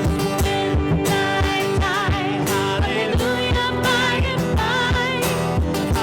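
Live acoustic band music: guitar chords over a steady beat of about two pulses a second, with a wavering melody line, voice or fiddle, in the middle.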